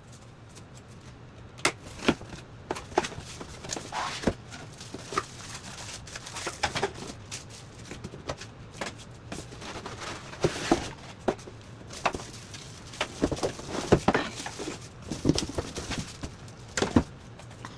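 Packaging handled while unboxing a blender kit: rustling and crinkling of cardboard and plastic wrap, with irregular knocks and clicks as parts are moved about.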